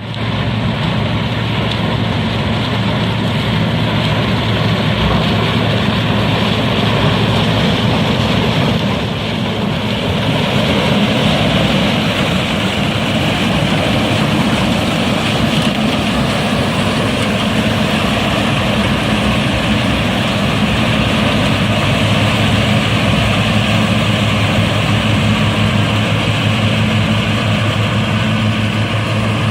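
Deutz-Fahr M1322 combine harvester running steadily while harvesting corn, its engine hum under a dense, even churn of threshing machinery.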